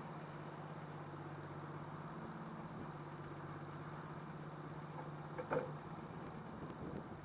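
Turbocharged car engine idling steadily, with one short knock about five and a half seconds in. The owner reports a weird noise from the turbo.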